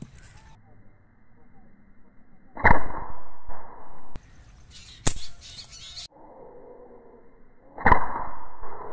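.22 Artemis SR1000S air rifle firing three shots at a bone, each a sharp crack about two and a half seconds apart. The first and last are followed by about a second of rough noise.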